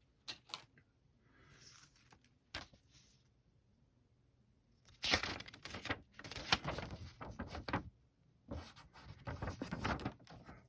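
Paper being handled: a few light clicks and taps, then two stretches of rustling and crinkling from about five seconds in, as the model kit's instruction sheet is unfolded and paged through.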